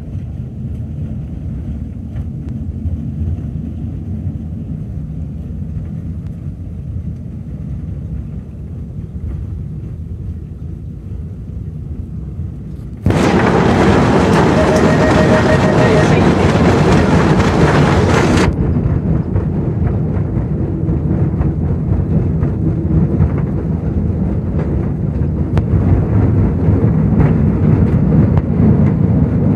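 Narrow-gauge train running: a steady low rumble from the Motor Rail & Tramcar Co locomotive and its wagons on the rails. About 13 seconds in, a loud rushing hiss covers it for about five seconds, then the rumble carries on, a little louder than before.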